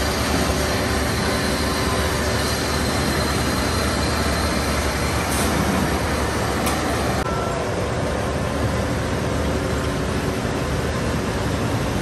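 Steady running noise of steel rolling-mill machinery, the rolling stands and their drive motors working as a hot bar passes through.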